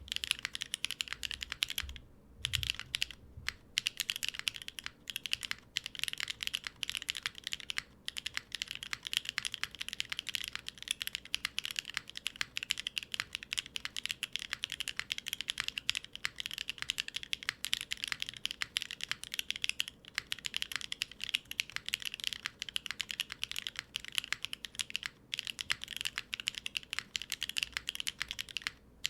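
Fast, continuous typing on a Neo70 gasket-mount mechanical keyboard with MZ Y1 linear switches, an aluminium plate, no foam and GMK keycaps: dense keystroke clacks with the switches bottoming out. The typing breaks off briefly a few times.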